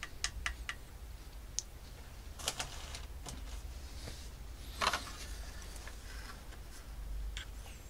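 Cam chain tensioner and small engine parts being handled by hand: a few light clicks in the first second, then two brief scraping rustles, over a low steady hum.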